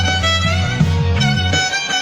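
Violin playing a gliding melody over a low, stepping bass line in an instrumental band piece.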